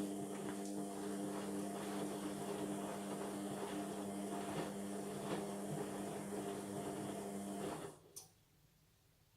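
Indesit washing machine's motor running with a steady hum and faint rattling ticks as the drum turns mid-wash, cutting off about eight seconds in, followed by a single click.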